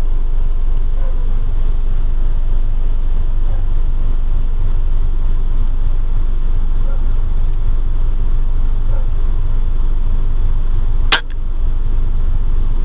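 A single sharp crack about eleven seconds in, from a Weihrauch HW100 pre-charged pneumatic air rifle being fired, over a steady low rumble.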